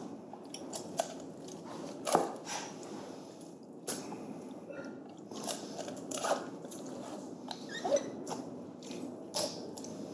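Long butcher's knife cutting through raw whole chickens on a plastic cutting board: irregular crunches and sharp knocks as the blade goes through the carcass and meets the board, the loudest about two seconds in and near the end, over a steady background noise.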